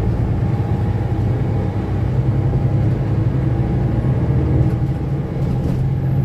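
Cabin sound of a Mercedes-Benz Citaro city bus on the move: a steady engine and road rumble, with the engine hum growing a little stronger about two and a half seconds in.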